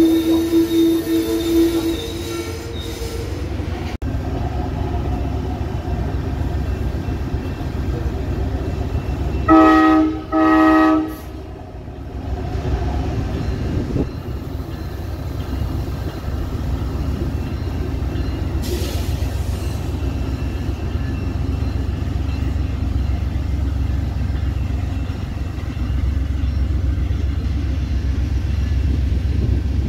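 Amtrak passenger train of Superliner cars rolling past, a steady low rumble throughout. A locomotive horn is sounding as it begins and ends about two seconds in, and two short horn blasts come about ten seconds in.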